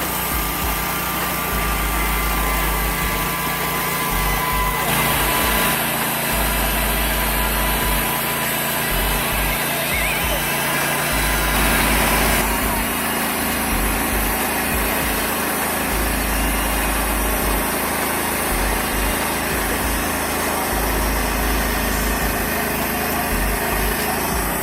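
Engine of a TimberKing 1600 portable band sawmill running steadily under load, with a dense mechanical noise; the sound changes abruptly twice, about five and twelve seconds in, as between separate takes.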